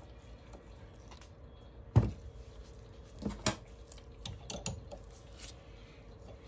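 Parts and tools being handled on a workbench: one heavy knock about two seconds in, then a few light clicks and clinks.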